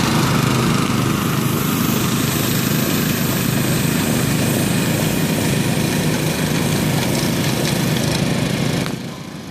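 Small gasoline engines of a Graco LineLazer 3900 airless paint striper and its ride-on driver unit running steadily as it drives along, the sound dropping off near the end as the machine moves away.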